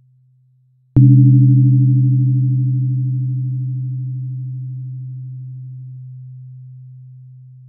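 128 Hz tuning fork struck once about a second in: a sharp click, then a low pure hum that fades slowly and steadily, its brighter overtones dying away first. The faint tail of an earlier strike is fading out before it.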